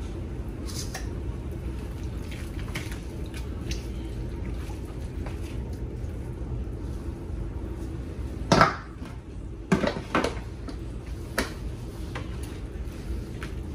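Cooking sounds at the stove: a silicone spatula stirring vegetable soup in a pan with light scrapes and taps. Then a few sharp knocks and clinks of kitchenware, the loudest about eight and a half seconds in, with two more close together about a second later and one more near eleven and a half seconds. A steady low hum runs underneath.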